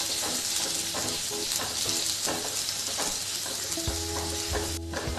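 Sliced onions sizzling in hot oil in a kadhai, with a steady hiss and the small scrapes and taps of a spatula stirring them around the pan.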